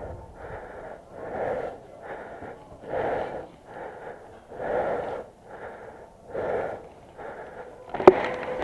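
A person breathing heavily in a steady in-and-out rhythm, close to the microphone. A single sharp click comes near the end.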